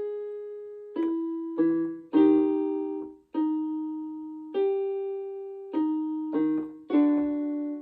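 Piano keyboard playing the notes of a vocal exercise: single notes and chords struck one after another, each ringing out and fading, with a pause of over a second before the next group.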